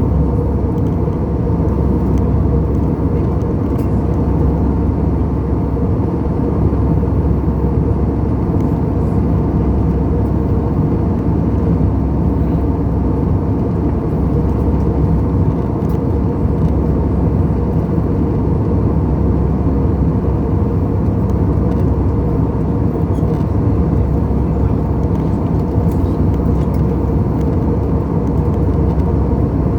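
Airbus A320 airliner noise: a loud, steady, deep rumble that holds unchanged.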